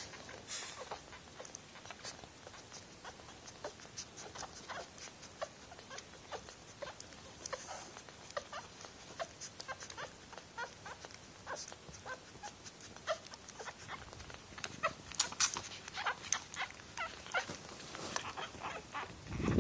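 Ten-day-old Shih poo puppies nursing: a scatter of soft suckling clicks and small squeaks and whimpers, growing busier near the end.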